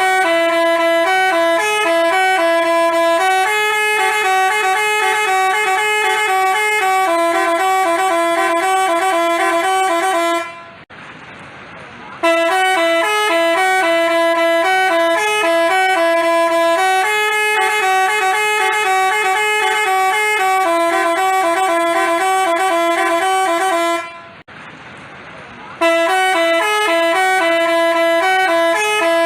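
Telolet Basuri multi-tone bus horn playing a bright tune of quick stepped notes. The tune breaks off for about a second and a half after ten seconds and again after about twenty-four seconds, each time starting over.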